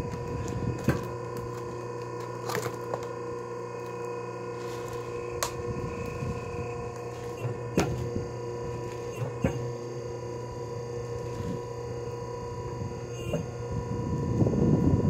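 Electric log splitter's motor humming steadily, with sharp knocks and cracks of wood scattered through as logs are split, and a louder rush of noise near the end.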